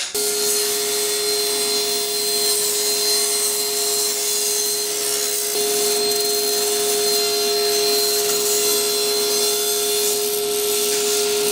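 Table saw running with a steady hum and an even rushing noise as it rips a strip of maple hardwood.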